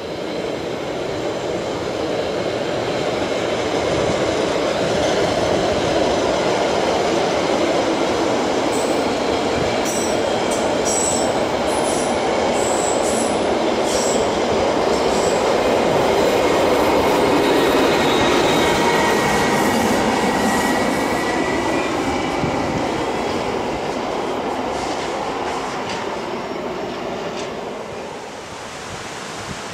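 Matterhorn Gotthard Bahn car-shuttle train passing: a long string of car-carrying wagons rumbling and clattering over the rails. The noise builds at the start, holds steady and fades away near the end, with brief high-pitched wheel squeals about a third of the way through.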